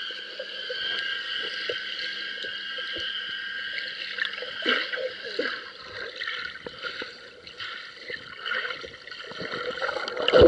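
Underwater sound picked up by a submerged camera in a lake: muffled water movement with bubbling and crackles from swimmers, over a steady high whine.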